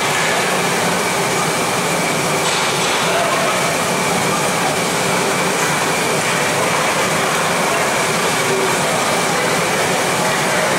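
Steady, loud ice-rink ambience during play: a continuous even rush with a faint steady hum, skates on the ice mixed in.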